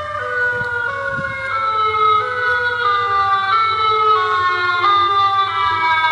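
Megahorn sound effect: a loud horn tone with many overtones, stepping down in pitch in short steps and jumping back up from time to time, like a siren.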